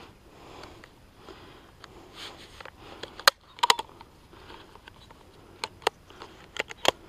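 Rustling of dry grass underfoot, with several sharp clicks or snaps in small clusters from about three seconds in.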